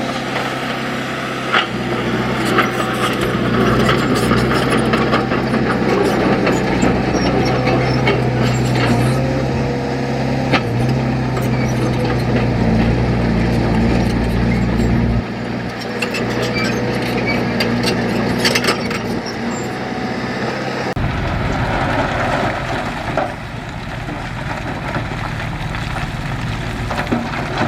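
Heavy diesel engine of earthmoving machinery running steadily, with scattered knocks and clanks. The engine note drops a little past halfway and shifts again about three-quarters of the way through.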